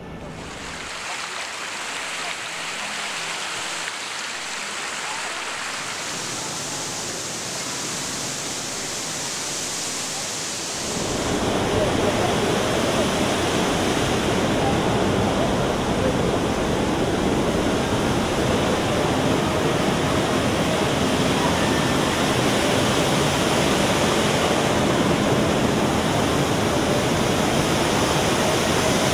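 Rushing water of the Rain Oculus, a whirlpool draining through the hole in a large acrylic bowl, at first a high hiss. About eleven seconds in it gives way to the louder, fuller rush of the falling water column crashing into the pool below.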